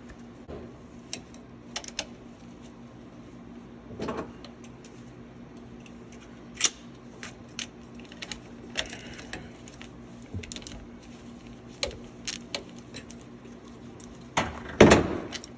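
3/8-inch drive ratchet with a 13 mm socket clicking in irregular spurts, with small metal clinks of tool and bolts, as intake manifold bolts are worked loose on a Mercruiser 5.0 MPI engine; a louder metallic clatter near the end.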